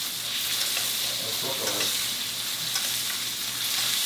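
Steak frying in a hot pan: a steady sizzling hiss with scattered crackles and spatters.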